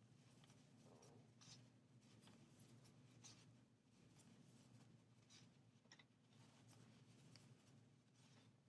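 Near silence: faint, short scratchy rustles of a crochet hook drawing chunky chenille blanket yarn through stitches, coming irregularly every second or so over a low steady hum.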